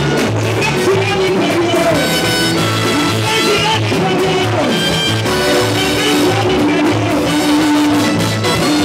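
Loud, upbeat gospel band music: keyboards over a steady, repeating bass beat.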